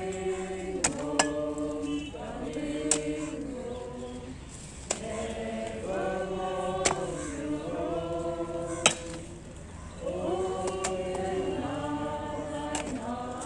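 A group of mourners singing a hymn together, with sharp knocks of a spade striking earth and brick every second or two.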